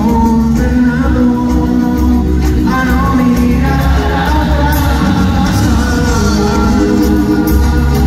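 Live rock band playing a song through the arena PA, with electric guitars, an upright double bass and drums under a sung lead vocal.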